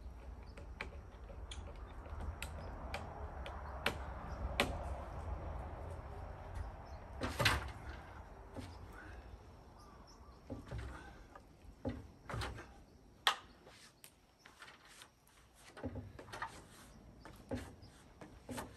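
Irregular knocks and clunks of timber and hardware being handled on a wooden deck frame, with the loudest clunk about seven seconds in.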